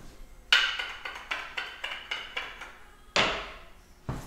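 Metal hand tools clinking and clanking as they are handled and set down on a wooden workbench. A sharp ringing clank comes about half a second in, then a run of lighter clinks, then another ringing clank about three seconds in.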